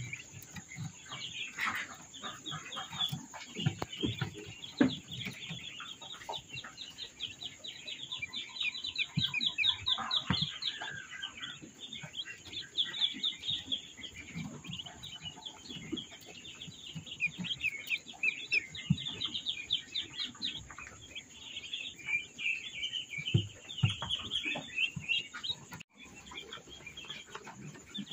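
A crowd of newly hatched ducklings peeping continuously, a dense chatter of short high chirps.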